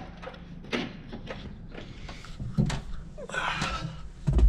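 A string of separate knocks and clicks over a low steady hum, with a short scraping rustle about three and a half seconds in.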